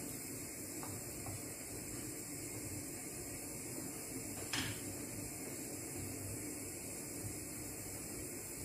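A creamy sauce simmering with a steady hiss in a nonstick frying pan while a wooden spoon stirs it. There are two faint ticks about a second in and one sharper knock of the spoon against the pan about halfway through.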